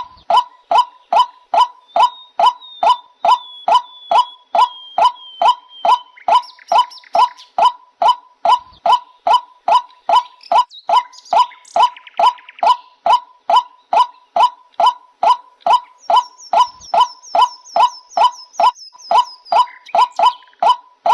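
Waterhen calling: one short honking note repeated steadily about twice a second, each note dropping slightly in pitch. Two faint, thin high whistles from other birds sound behind it.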